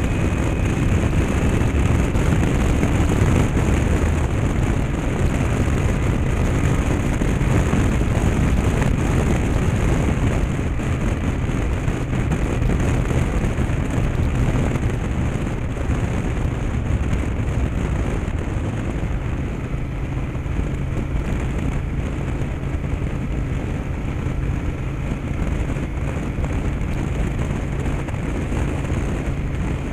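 Yamaha TDM850's parallel-twin engine running at a steady cruise, mixed with heavy wind rush on the camera's microphone. It gets slightly quieter about halfway through.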